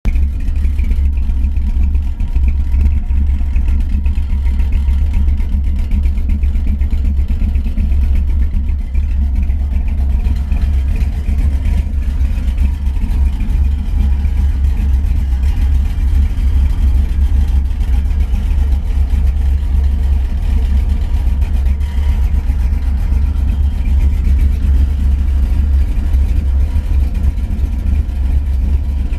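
1963 Chevrolet Nova on the move: a loud, steady low rumble of engine and road noise throughout, recorded to document a rattling noise in the car.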